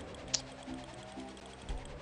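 Online slot game's background music with held electronic notes and light, even ticking from the spinning reels, and one sharp click about a third of a second in.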